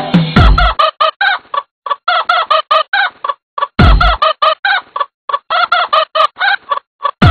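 Cartoon chicken clucking in quick runs of short calls, about seven a second, broken by brief pauses. Two low thumps come in under it, about half a second and four seconds in.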